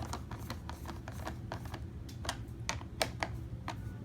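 Irregular light clicks and taps, about three a second, from the headlight assembly being handled, over a steady low hum.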